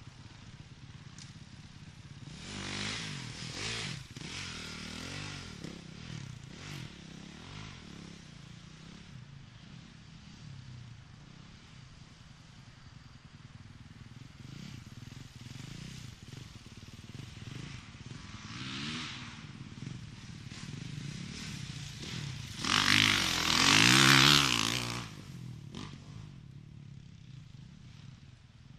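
Dirt bike engines revving on a dirt track, swelling and fading as the bikes ride past. The closest and loudest pass comes about three-quarters of the way through, with smaller passes a few seconds in and about two-thirds through.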